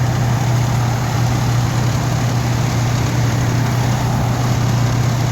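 Fire engine's diesel idling: a steady low hum that holds even throughout.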